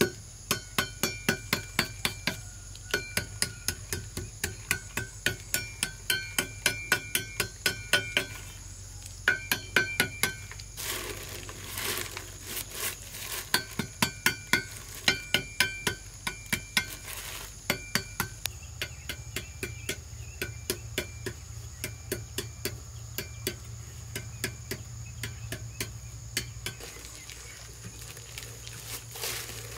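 A hand tool tapping on the rim of a cement-and-stone flower pot in a quick, even run of about three sharp taps a second, each with a short ring. The taps thin out after about 18 seconds. A plastic liner rustles briefly, and insects buzz steadily throughout.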